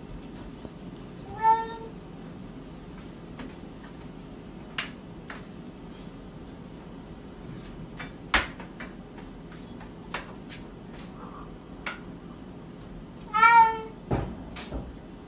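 Domestic cat meowing twice, once about a second in and again, louder, near the end. In between come scattered sharp clicks and knocks as the cat paws at a door's lever handle.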